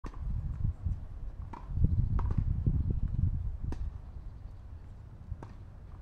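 Wind buffeting the microphone as a low, uneven rumble, heaviest over the first four seconds and then easing, with a handful of short sharp clicks.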